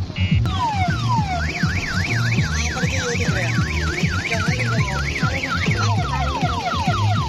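Electronic siren effects over loud dance music with a heavy thumping bass beat. The siren goes from a falling wail into a fast up-and-down yelp, about four cycles a second, then switches to quick repeated falling sweeps near the end.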